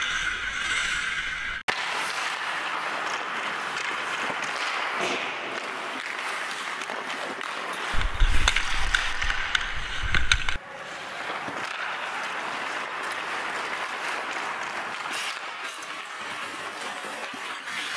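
Hockey skate blades scraping and carving on rink ice, a steady hiss. About eight seconds in, a couple of seconds of low rumble on the camera microphone with sharp clicks of a stick handling the puck.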